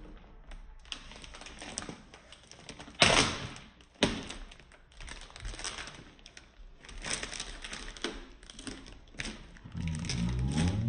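Hard plastic kit parts being handled: scattered light clicks and rustling, with two sharp knocks about three and four seconds in.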